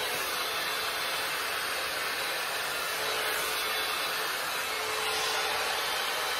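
BaByliss hot air brush running steadily: an even rush of blown air with a faint steady motor hum.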